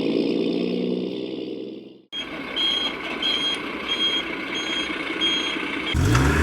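Truck engine sound running and fading out, then after a sudden cut a truck's reversing alarm beeping steadily, about once every 0.6 seconds, over engine noise. Near the end a louder low hum comes in.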